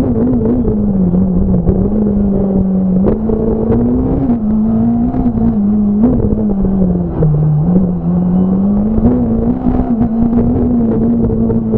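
Fiat Punto S1600 rally car's four-cylinder engine, heard on board at high revs. The pitch rises and falls with throttle and gear changes and drops lowest about seven seconds in before climbing again. Frequent short knocks sound through it.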